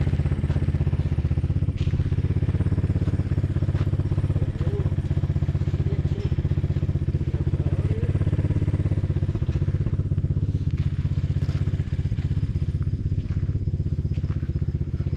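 An engine running steadily at idle, a fast even throb that does not change pitch.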